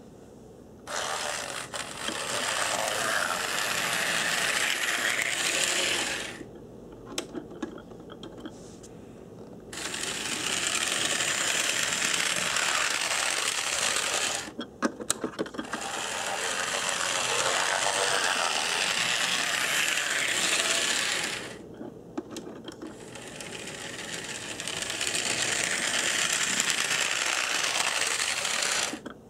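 Vintage AHM HO-scale diesel switcher model running on the track, its small electric motor and gears whirring with a gritty, rattling sound. It runs in four spells of several seconds each, stopping in between, with a few sharp clicks in the pauses.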